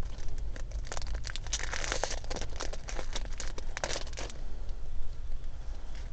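Crinkling and tearing of a Pokémon trading card booster pack's foil wrapper as it is ripped open, a dense run of crackles that stops about four seconds in.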